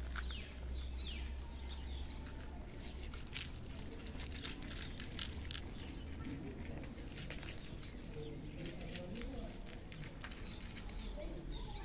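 Cats eating dry kibble from plastic plates: an irregular run of sharp crunching clicks. A few short bird chirps come near the start, over a low rumble.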